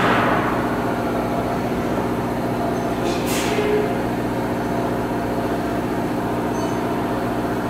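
A machine hums steadily at one pitch, and a short hiss comes about three seconds in.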